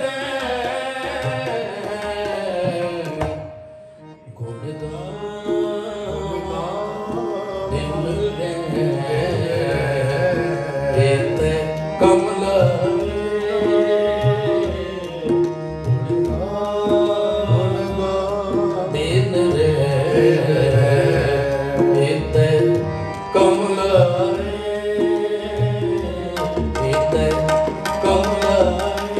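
Sikh kirtan: men's voices singing a shabad over harmonium with tabla keeping the rhythm. The music thins out briefly about four seconds in, then goes on.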